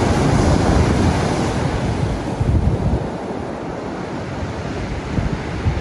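Ocean surf washing onto a beach, a continuous roar of breaking waves that swells in the first second or two and then holds steady, with gusts of wind buffeting the microphone.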